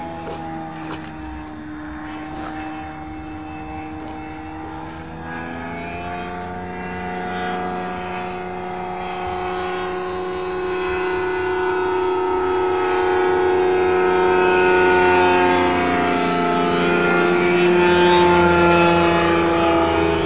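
Light propeller airplane's engine droning overhead, its pitch drifting slightly as it passes and growing louder through the second half as it comes in low to land.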